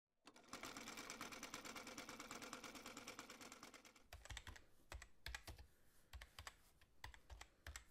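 Faint keyboard-typing clicks, a typewriter-style title sound effect: a rapid, dense clatter for about the first four seconds, then separate keystroke clicks with soft thumps as the title is typed out.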